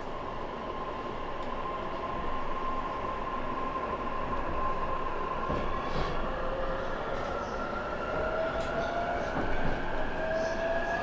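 Electric commuter train heard from inside the car as it pulls away from a station: the traction motors whine in several tones that rise slowly in pitch as the train gathers speed, over a steady rumble of wheels on rail.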